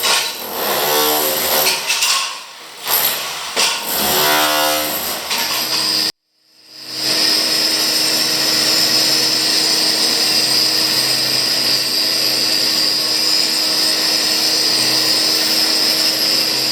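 Power tool running, changing pitch for the first few seconds, then cutting off abruptly and starting again, running steadily for about ten seconds before cutting off abruptly again.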